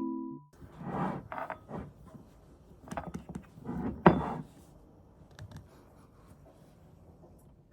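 Household handling noises: a run of short rustles and knocks, with a sharp click about four seconds in, then only faint small clicks.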